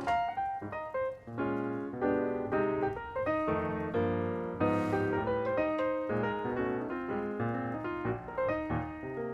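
Background piano music: a steady run of notes and chords. A brief hiss comes about halfway through.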